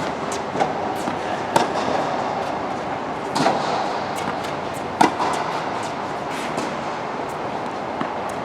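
Sharp knocks of a ball being struck back and forth in a rally, at uneven intervals of one to two seconds, over a steady background hiss.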